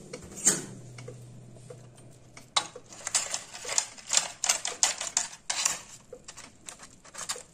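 Metal fork clicking and scraping in a parchment-lined air fryer basket as chicken pieces are turned over, with irregular light clicks starting about two and a half seconds in.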